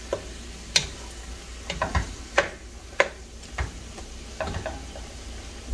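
Wooden spoon stirring pork rib pieces with chopped tomato and onion in a pot, giving irregular knocks and scrapes against the pot over a faint steady sizzle as the meat and tomato sauté.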